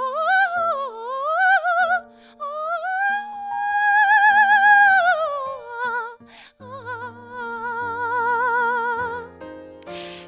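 A woman singing in a classical musical-theatre style, holding long notes with wide vibrato over steady instrumental accompaniment. One long note swells and is held for about two seconds in the middle.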